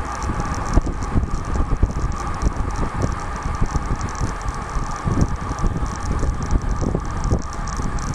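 Riding noise from a bicycle on a rough trail: wind buffeting the microphone, with the bike rattling and knocking over bumps.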